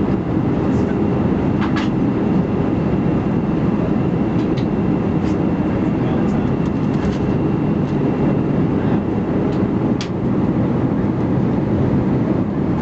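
Steady rumble inside the cabin of an Airbus A319 airliner, with a faint high whine through most of it and a few light clicks and rattles, loudest about ten seconds in.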